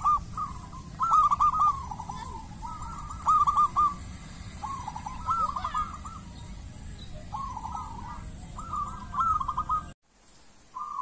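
Zebra dove (perkutut) cooing: repeated phrases of quick, high, looping coo notes, a new phrase every second or two. This is the shrill 'screaming' coo style (anggungan menjerit). The cooing breaks off about ten seconds in.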